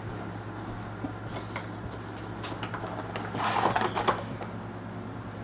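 Packaging being handled: short rustles and clicks, with a longer stretch of rustling about three and a half seconds in, over a steady low hum.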